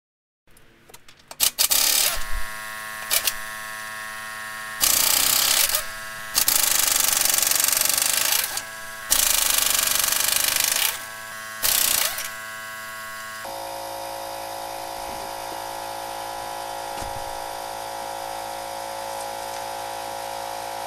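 Pneumatic impact wrench spinning lug nuts off a Ford F-150's front wheel in about six loud rattling bursts, some about two seconds long. A steady hum sounds between the bursts, and a different steady hum runs on through the second half.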